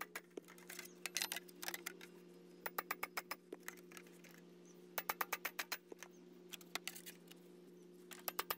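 Light, quick hammer taps on a railroad spike used as a chasing tool against a galvanized sheet-metal box on a rail anvil, in short bursts of several taps a second. The spike is tightening the seam edges and flattening the rivets.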